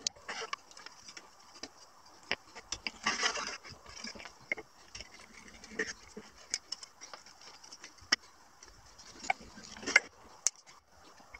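Scattered clicks, knocks and scrapes of small plywood pieces and a drill handled on a wooden workbench. A short rasping burst comes about three seconds in and another near the end.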